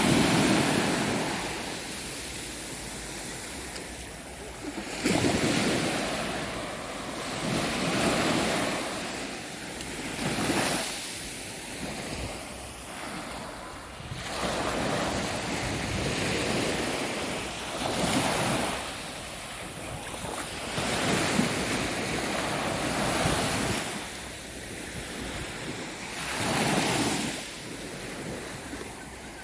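Sea waves washing onto the shore, the noise swelling and falling back every few seconds, with wind on the microphone.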